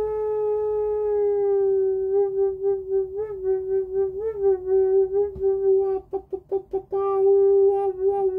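A woman's voice toning one long, steady "oo" note on a single pitch, wavering slightly now and then. About six seconds in, the note breaks into a quick stutter for about a second, then holds again.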